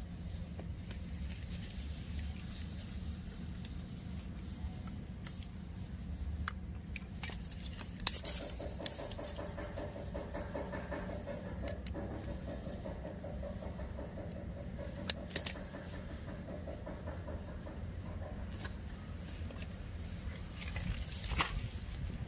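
Aluminium bonsai wire clicking and scraping as it is wrapped around a ficus branch and twisted tight with pliers, with a few sharper metallic clicks, over a steady low background hum.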